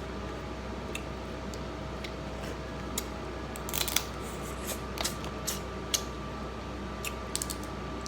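A scattering of light clicks and taps, most of them in the middle few seconds, over a steady hum with two faint steady tones.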